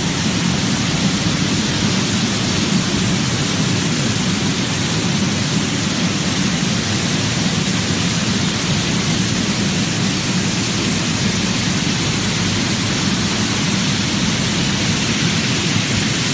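Vegetable washing machine running: a steady, loud rush of water spraying from its nozzle bars onto a wash tank churned by air bubbles, with a low hum underneath.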